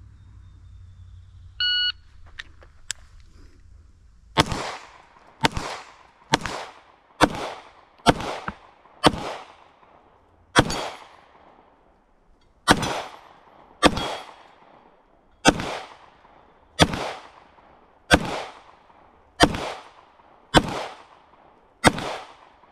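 A shot timer beeps once. About three seconds later an Atlas Gunworks Athena pistol fires about fifteen shots, roughly one a second with a couple of longer gaps, each shot cracking and trailing off in a short echo.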